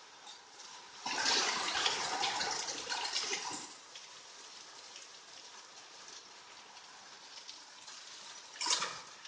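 Rain with hail falling, a steady hiss of many small pattering hits. About a second in, a louder rushing surge lasts roughly two and a half seconds, and a shorter surge comes near the end.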